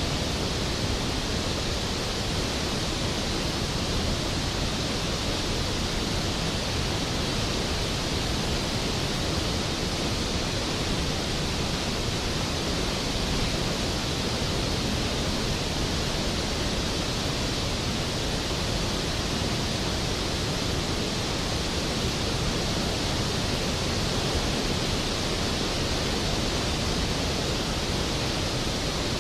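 Skógafoss waterfall's steady, unbroken roar of falling water.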